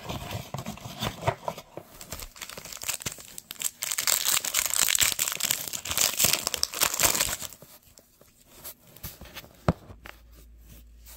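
Foil wrapper of a Panini football card pack being torn open and crinkled, loudest for several seconds in the middle. It then drops to a quieter rustle of cards being handled, with one sharp click near the end.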